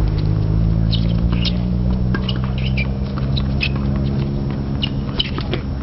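Tennis rally on a hard court: sharp ball strikes and short high shoe squeaks scattered through, over a steady low hum.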